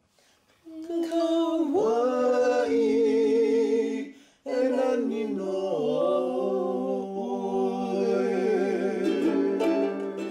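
A solo voice singing long held notes with a wavering vibrato, breaking off briefly about four seconds in. Plucked strings start strumming near the end.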